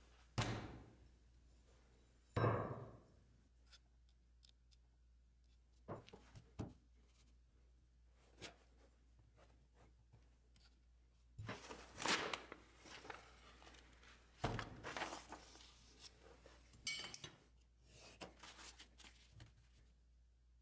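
Paper sheets and a steel ruler handled on a cloth-covered tabletop: two soft knocks in the first few seconds, then scattered paper rustling and light taps.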